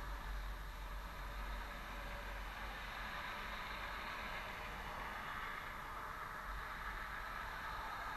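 Steady rush of wind on the microphone and tyre noise from an e-bike riding along a highway shoulder, with cars passing in the opposite lane.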